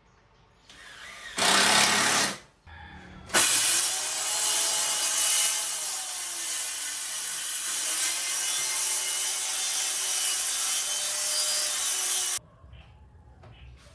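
Handheld power tool cutting plywood: a short run of about a second, then one steady cut of about nine seconds that stops abruptly, the motor's pitch wavering under the load.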